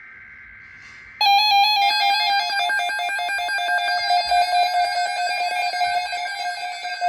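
Emergency Alert System alert: a buzzy digital data burst ends about a second in, then a loud electronic alarm tone starts, warbling between two pitches with a rapid pulse.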